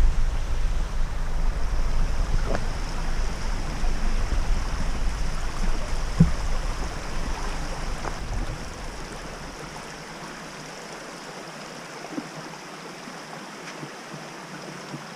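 Steady rush of a flowing creek, with wind rumbling on the microphone for roughly the first half before it drops away, and a few faint ticks.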